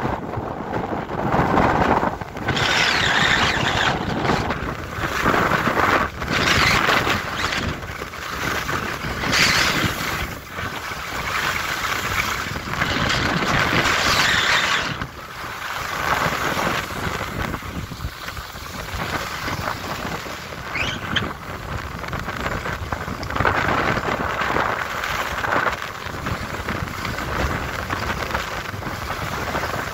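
Skis scraping and hissing over hard-packed groomed snow during a run down a slope. The hiss swells every few seconds as the edges bite into each turn, with wind buffeting the microphone.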